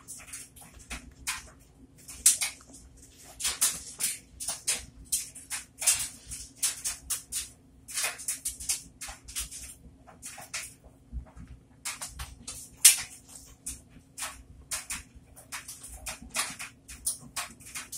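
Wet squelching and fizzing of a soap-soaked sponge squeezed and kneaded by rubber-gloved hands in a bowl of thick lather, in irregular squishes one or two a second. One squish about thirteen seconds in is louder than the rest.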